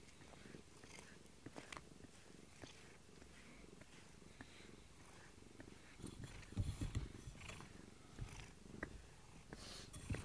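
Domestic cat purring softly while being brushed, with small clicks and rubbing as it rubs its face against a rubber grooming brush. About six seconds in there is a louder stretch of low bumping and rubbing as the cat pushes its head up against the camera.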